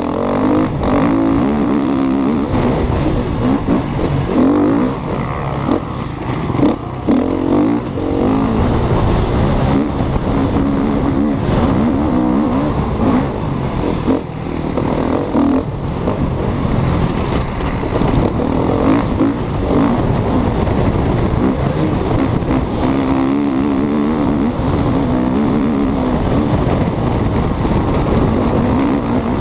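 KTM 250 EXC-F single-cylinder four-stroke enduro motorcycle ridden hard over a rough dirt track, its engine revs rising and falling continually. Short knocks from the bike hitting bumps sound throughout.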